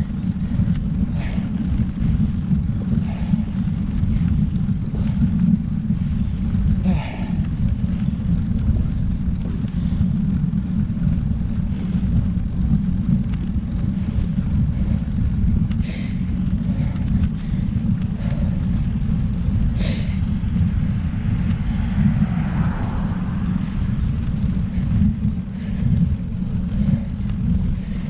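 Steady low wind rumble buffeting the microphone of a camera riding along on a road bike, with two brief clicks about 16 and 20 seconds in.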